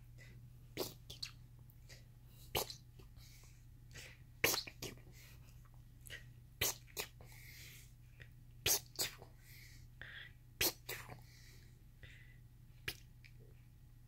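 A string of short, sharp clicks, about a dozen, some coming in quick pairs, roughly one every second, over a faint steady low hum.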